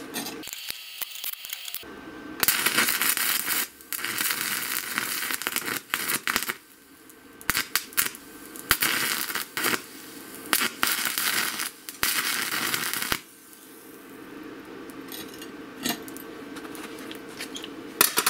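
A 7018 stick-welding electrode arcing at about 100 amps: harsh crackling hiss in several separate bursts, each cutting out abruptly and starting again. The rod is hard to start and keep lit. It is quieter in the last few seconds.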